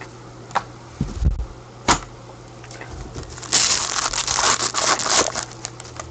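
Trading cards and their plastic holders handled by gloved hands: a few light clicks and a short low knock in the first two seconds, then about two seconds of crinkling and rustling from about three and a half seconds in.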